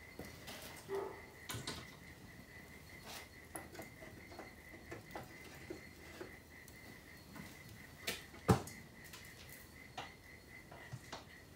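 Light metallic clinks and knocks of a wire cooking rack being slid into a wood-fired smoker oven, with one sharp, louder metal clank about eight and a half seconds in.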